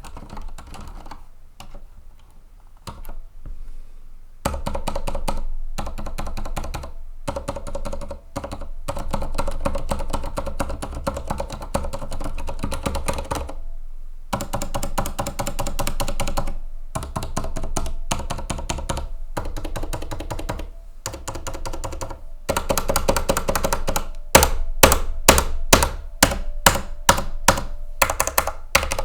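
TEX Shinobi mechanical keyboard with silent red switches being typed on. A few scattered keystrokes give way to fast continuous typing with brief pauses. Near the end comes a run of separate, louder key presses, about three a second.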